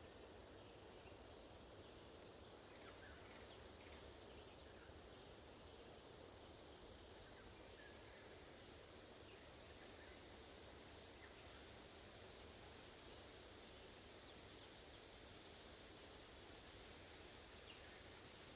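Faint summer woodland ambience: a steady high hiss of crickets over soft wind noise, with a few brief, distant bird chirps.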